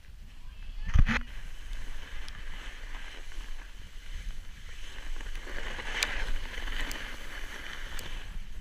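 Snowboard sliding and scraping over packed snow, with wind rumbling on the microphone; the scraping hiss grows louder in the second half. A sharp thump about a second in.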